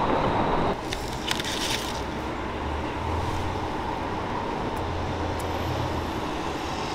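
City street traffic noise that cuts off abruptly under a second in, then steady low background hum and hiss with a few faint clicks about a second in.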